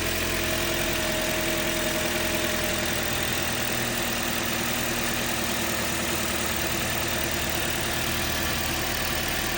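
2010 Toyota Corolla's four-cylinder engine idling steadily, with a small noise (a "ruidito") that the owner cannot place and wonders could be the timing chain or something further inside the engine.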